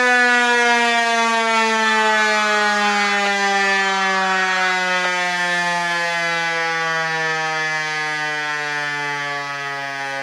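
Federal Signal Equinox outdoor warning siren, an 8-port chopper, winding down at the end of its one-minute alert tone: one steady multi-tone wail that slowly falls in pitch and fades.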